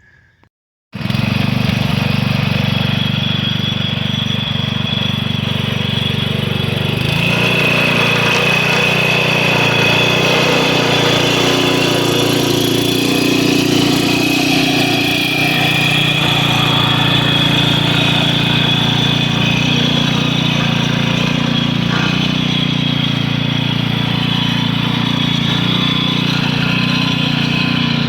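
Speedex 840 garden tractor's engine running steadily under load while pulling a plough, cutting in abruptly about a second in; its note shifts slightly about seven seconds in.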